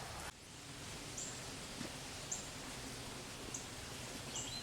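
Quiet outdoor ambience with a bird giving short, high single chirps about once a second, then a quicker run of chirps near the end.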